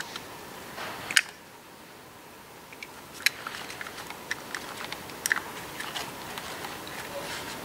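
Scattered small clicks and rustles of hands handling a motorcycle rear brake caliper's guide pin and rubber seal, working the greased pin back through. The loudest click comes about a second in.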